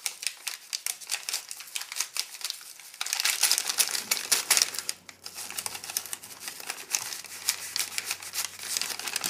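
Plastic and foil packaging crinkling in many quick crackles as an MRE retort pouch is worked into the sleeve of a flameless ration heater, loudest about three to five seconds in.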